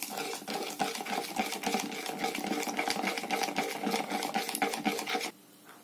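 Metal teaspoon stirring gelatin into salt water in a plastic measuring cup: a fast, steady run of clicks and scrapes as the spoon circles against the cup's sides. The stirring stops shortly before the end.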